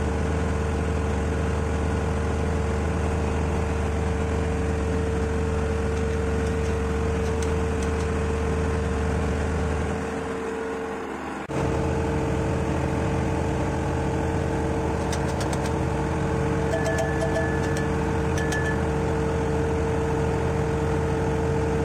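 Steady engine-room drone of running ship's machinery, with a constant mid-pitched hum over a low rumble. It dips briefly about halfway, then resumes with a slightly different tone. A few light clicks come in the second half.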